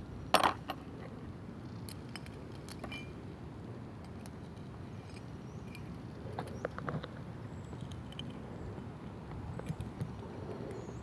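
Scattered light metallic clicks and rattles from handling a car door lock cylinder and small tools, with one louder click about half a second in and small clusters of clicks a couple of seconds in and again past the middle.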